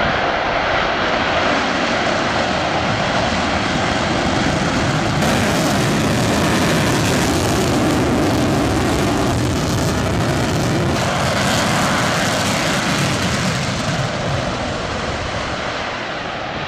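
Rocket engine roaring steadily, a dense rumbling noise that grows brighter a few seconds in and eases slightly near the end.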